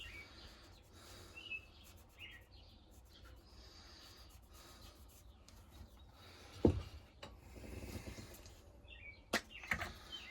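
Soft rubbing and handling noises as a knife blade is wiped clean, with a single sharp knock about two-thirds through and a couple of clicks near the end. Small birds chirp a few times in the background.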